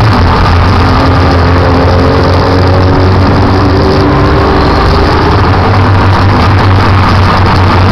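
Motorcycle engines running as the bikes ride along a street, a loud, steady low drone with a slight rise and fall in pitch.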